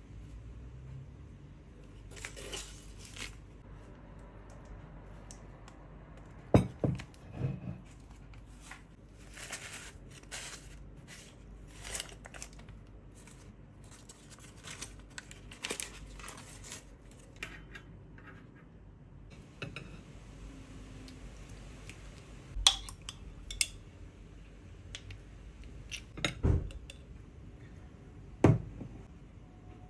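Paper crinkling and rustling as a wrapped glass jar is unwrapped and opened, with a few sharp clinks and knocks. Near the end, a metal fork clinks against a ceramic plate.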